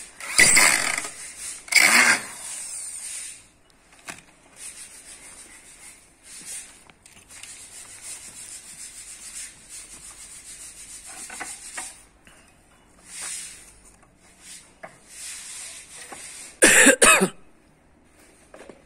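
Hand scraping and rubbing on hard facade panel material, irregular strokes with a few louder rough scrapes near the start and again near the end.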